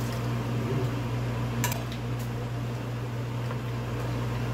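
A wooden spatula stirring beef curry in a nonstick frying pan, with two sharp knocks against the pan about two seconds in. A steady low hum runs underneath.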